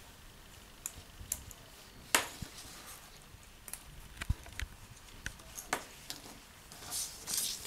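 Scattered small sharp clicks and taps of plastic strap fasteners being unclipped from a fabric monitor case, the loudest about two seconds in, with a short rustle near the end as the case is moved.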